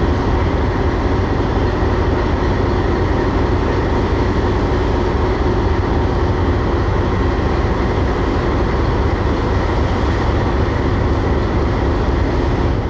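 A boat's engine running steadily, heard from on board: a loud, even drone with a deep rumble.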